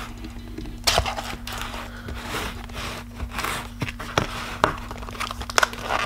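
A box-opening knife cutting into a plastic-wrapped parcel, with crinkling and tearing of the plastic mailer and several sharp clicks and scrapes.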